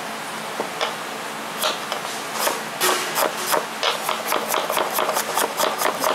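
Kitchen knife chopping red onion on a wooden cutting board: sharp knocks of the blade on the board, sparse at first, then a fast run of strikes at several a second from about a second and a half in.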